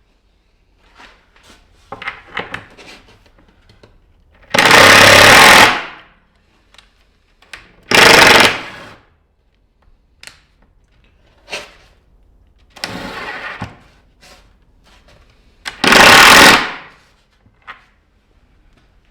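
Power driver, likely an impact driver, running in three loud bursts of about a second each, with a shorter, quieter run between the second and third. It is driving screws into the glued boards, used in place of clamps. Light clicks and knocks of handling come between the runs.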